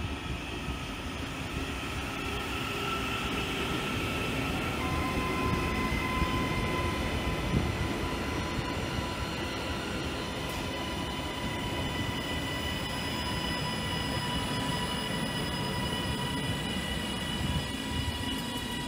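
Northern Class 331 electric multiple unit running in along the platform: wheels rumbling on the rails, with steady high whining tones setting in about five seconds in.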